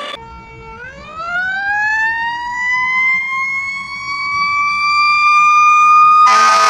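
Fire rescue truck's mechanical siren winding up: one long smooth rise in pitch that slows and levels off near the top. Near the end an air horn blasts in loudly over it.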